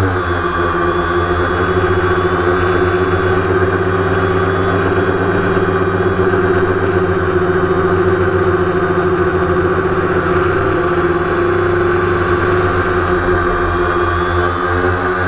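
DJI Phantom quadcopter's electric motors and propellers, heard from the GoPro riding on it: a loud, steady hum of several close tones that shifts a little in pitch about ten seconds in as the drone manoeuvres.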